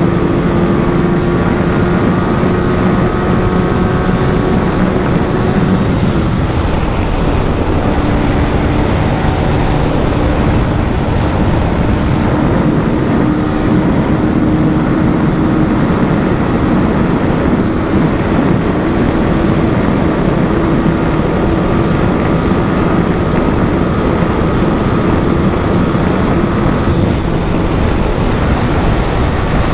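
Yamaha R15 V3's 155 cc single-cylinder engine held at high revs near top speed, a steady drone that dips slightly about seven seconds in and then holds, with heavy wind rush over it.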